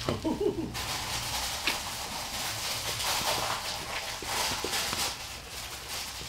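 Cane Corso in labor panting heavily, a steady rhythmic hiss of breath, as she shifts on the towels in the whelping box.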